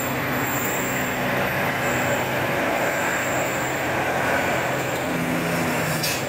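Slow-moving jammed traffic: the low diesel hum of a tour bus and other vehicles running at crawling speed over a steady wash of road noise. A short sharp click comes near the end.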